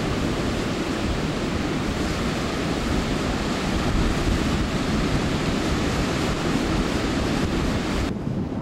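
Storm surf breaking and strong storm wind buffeting the microphone: a steady, loud noise of waves and wind. About eight seconds in the hiss drops away suddenly, leaving only a low rumble.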